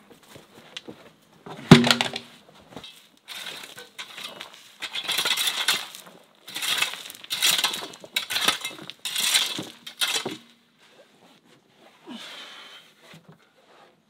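A heavy timber beam dropped on the ground with a loud thud, then a rake scraping through gritty soil in about eight repeated strokes, which stop about three-quarters of the way through.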